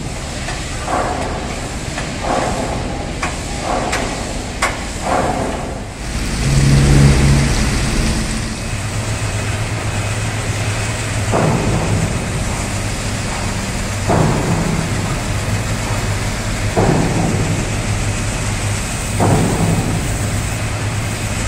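A few sharp metallic knocks, then from about six seconds a machine running with a steady low hum that swells every two to three seconds, under a constant spray hiss from a high-pressure jet working on a steel ship's hull.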